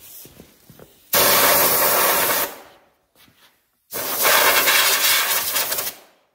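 Compressed-air blow gun giving two loud hissing blasts, about a second and a half and two seconds long, blowing grinding dust out of the broken fiberglass fender area.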